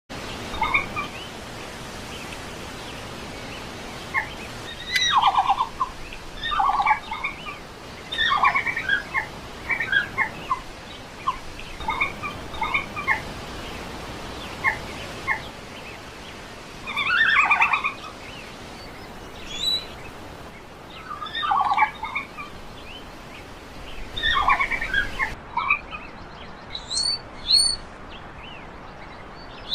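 Red panda calling in repeated bursts of rapid, chirping twitters, a cluster every second or two, over a steady background hiss. Near the end the background changes and higher, sharper chirps come.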